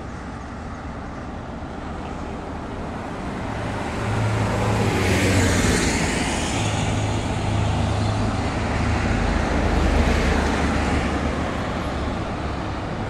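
A motor vehicle passing by on a road: engine and tyre noise grows from about four seconds in and is loudest around five to six seconds. A second swell comes near ten seconds, then it eases off.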